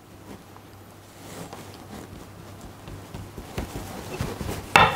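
Hands gathering and pressing soft pastry scraps together on a floured worktop: faint, irregular rustling and soft pats, with one brief louder knock near the end.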